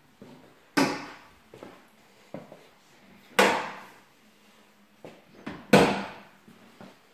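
Kitchen cupboard doors, including the panel doors of integrated appliances, being opened and shut: three loud thuds about two and a half seconds apart, with lighter knocks and clicks between them.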